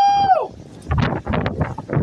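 Strong, gusty thunderstorm wind buffeting the microphone in rapid uneven blasts. Near the start, a brief pitched sound rises, holds and falls away.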